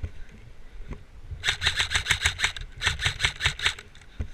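Airsoft electric gun firing two quick full-auto bursts, each about a second of rapid evenly spaced shots.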